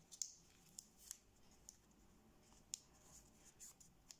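Thin kami origami paper crinkling faintly as fingers fold and press it, with a scatter of short, sharp crackles, the clearest about a quarter second and nearly three seconds in.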